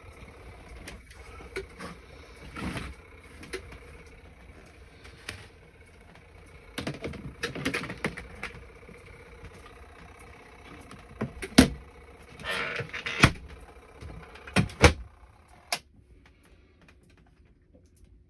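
Wet laundry and the plastic spin-tub parts of a Costway portable washer and spinner being handled. There are rustling swishes and scattered clicks and knocks, with a few sharp plastic clacks toward the middle.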